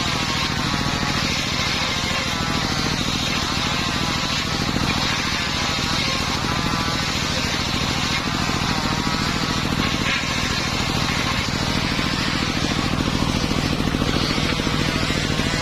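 Engine of a homemade circular saw rig running steadily, a fast even engine beat with a wavering higher tone above it.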